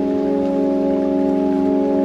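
Background music: a slow, steady chord of several notes held without a break, over a faint hiss.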